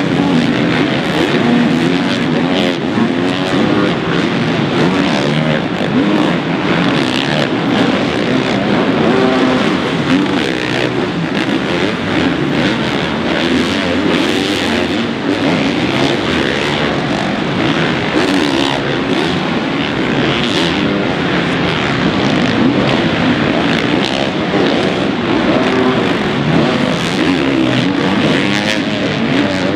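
Several motocross bikes' engines revving hard and overlapping, pitch rising and falling as the riders work the throttle through the supercross track's jumps and turns.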